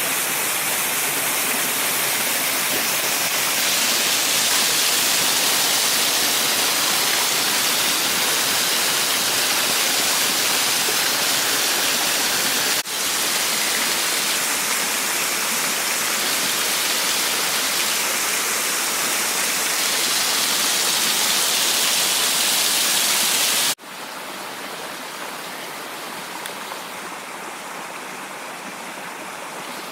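Waterfall rushing: a steady, loud noise of falling water. It cuts off abruptly twice, about 13 and 24 seconds in, and is quieter after the second cut.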